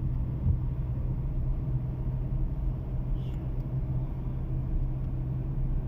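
Car engine and road noise heard from inside the cabin while driving in traffic: a steady low drone.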